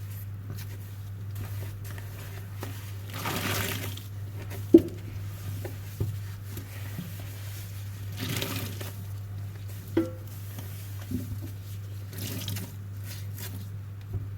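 Soapy sponge squeezed and rinsed: three wet swooshes of water running out of it, several seconds apart, with a few small knocks between them, over a steady low hum.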